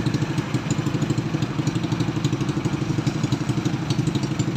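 Motorcycle engine idling close by with a steady, fast putter, over street traffic.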